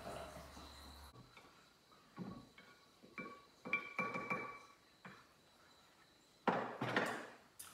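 Stirring stick knocking and clinking against glass jars of fermenting herbs: a run of clinks that ring with a clear glassy tone, between about two and five seconds in. Two louder, noisier sounds follow near the end.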